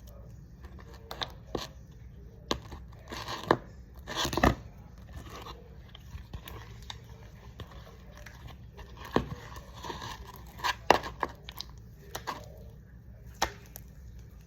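Slime being worked by hand: irregular sticky clicks and crackling pops, loudest about four seconds in and again around eleven seconds.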